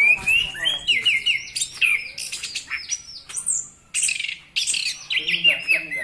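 Chestnut-capped thrush (anis kembang) in full song: a rapid, varied run of loud chirps and quick down-sweeping whistles mixed with high squeaky notes, with a brief lull a little past the middle.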